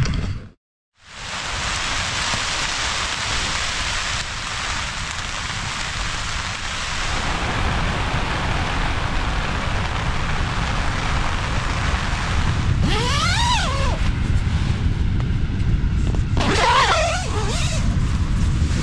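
Heavy rain falling steadily, a dense even hiss, starting after a brief silent gap. Short high chirps cut through it about thirteen seconds in and again near the end.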